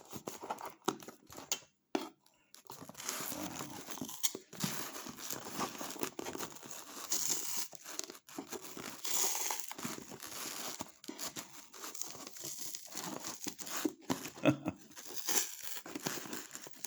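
Shipping box and its packaging being torn open: irregular tearing and crinkling, with a short pause about two seconds in.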